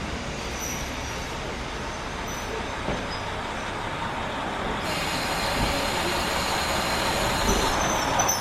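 KiHa 40 diesel railcar of a local train running, a steady rumble of rail and engine noise that grows louder over the last few seconds, with brief faint high squeals.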